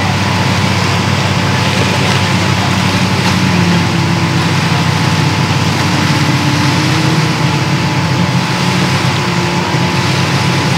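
Pickup truck engine running steadily at low speed as it backs a boat trailer down the ramp into the water.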